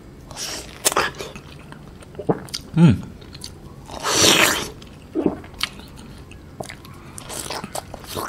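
Close-miked biting and chewing of a juicy Japanese white peach, with wet smacking clicks from the soft flesh. A louder wet bite comes about four seconds in.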